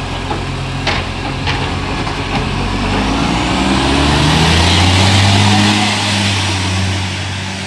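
Euro 6 diesel garbage truck's engine pulling away. Its note rises and grows louder to a peak about five seconds in, then eases off. An exhaust leak gives it a very unusual sound. There are a couple of sharp clicks in the first two seconds.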